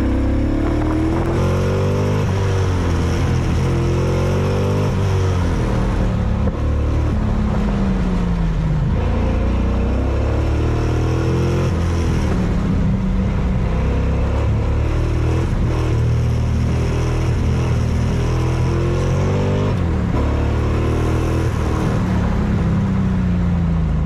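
Car engine under hard driving on an autocross course, its pitch climbing and dropping again and again as the car accelerates, shifts and slows for corners.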